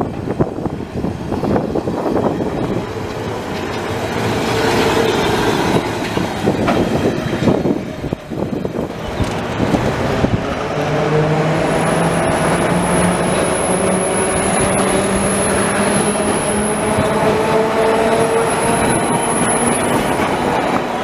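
Milan class 1500 Peter Witt tram running on street track: wheels clatter and knock over the rails for the first half. Then a steady whine slowly rises in pitch as a tram gathers speed, with a faint high whistle over it.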